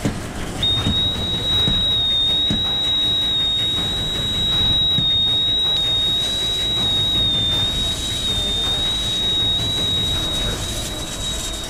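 A firefighter's SCBA low-air warning whistle sounds a steady high-pitched tone, starting about half a second in, over the rush of a fire hose spraying water. The breathing-air cylinder is nearly empty.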